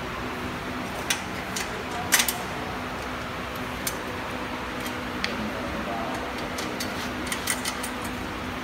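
Scattered sharp metal clicks and taps from hands fitting bolts and parts to a stainless-steel roller conveyor frame, bunched in two clusters, over a steady background hum.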